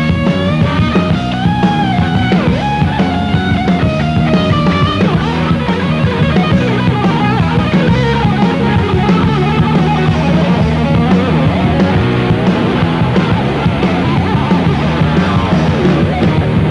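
Live heavy metal band playing: an electric guitar lead with bending, sliding notes in the first few seconds over steady bass and drums.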